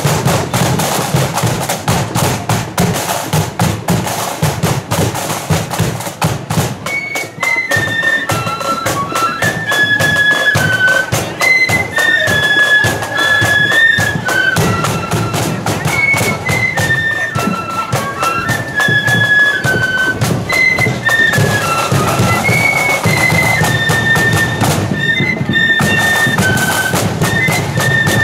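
Marching flute band playing: snare and bass drums beat alone for about seven seconds, then the flutes come in with a high, shrill melody over the drumming.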